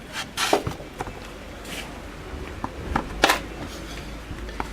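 Handling noise: a few light clicks and short rustling swishes as parts are moved about by hand, over a low steady background hum.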